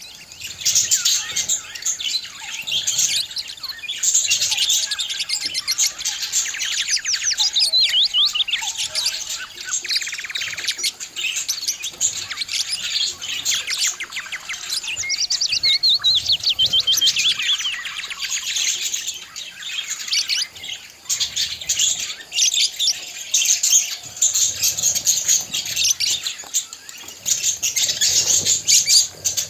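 Budgerigars warbling and chirping, a continuous chatter of quick high chirps and rapid trills.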